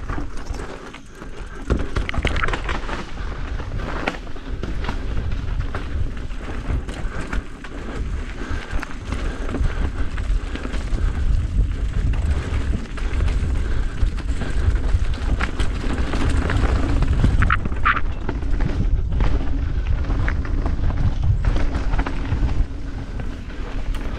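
Off-road vehicle on a rough trail: a steady low rumble with frequent knocks and clatters, and a short high squeak about eighteen seconds in.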